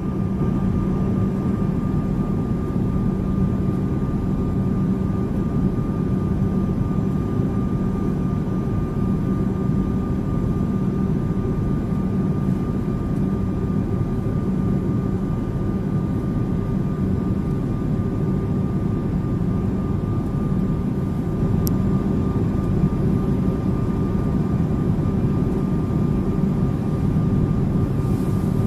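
Steady cabin noise of a jet airliner in flight, heard from a window seat by the wing: an even, deep rumble of engines and rushing air with a faint steady hum on top.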